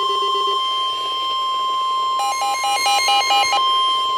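Emergency Alert System alarm tones: a steady, piercing high tone, with a low pulsing buzz that stops just after the start. About two seconds in, a rapid beeping on a second tone (about five beeps a second) joins it for over a second.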